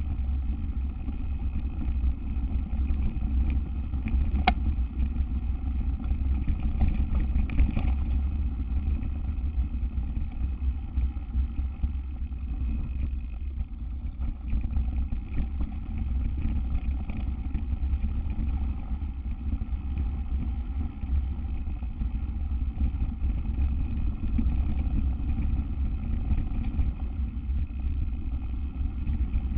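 Steady low rumble of a mountain bike rolling fast down a dirt trail, with wind buffeting the microphone; a single sharp click about four and a half seconds in.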